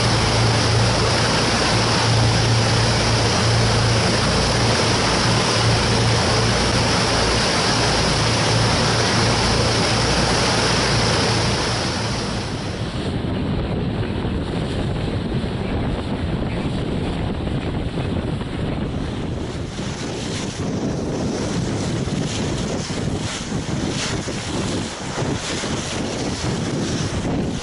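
Wind and rushing water with a steady low engine hum, as heard aboard a moving boat. About twelve seconds in, the hum and the hiss drop away, leaving gustier wind on the microphone and splashing water.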